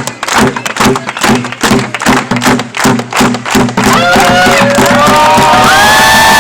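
A fast, steady drumbeat with a crowd chanting along. About four seconds in, the beat stops and the crowd bursts into loud cheering, shouting and whooping.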